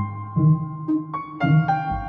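Background piano music: a calm melody of single notes over low bass notes, a few notes each second.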